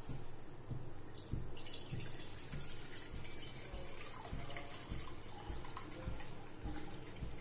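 Water pouring in a thin stream from a plastic bottle into a stainless-steel saucepan, starting about a second in and continuing steadily. A low, irregular thumping sits underneath.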